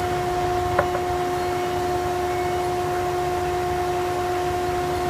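Thickness planer running steadily, a constant machine hum with a steady whine, and one short click about a second in.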